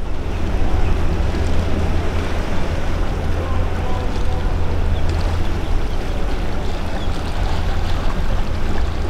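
Steady low rumble and rushing water of a boat under way, with wind on the microphone.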